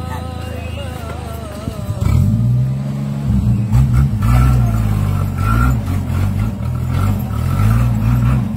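An engine runs steadily. About two seconds in, a louder engine takes over close by and revs up and down repeatedly, an open-top 4x4 working under load through mud.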